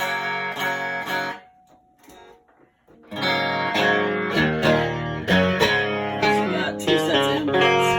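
Electric guitar played through a 1978 Marshall 4140 Club and Country tube combo fitted with new Celestion speakers, plugged into the amp's other input channel to compare it. A few chords ring out and fade, then after a pause of about a second and a half comes a run of busy picked notes and chords.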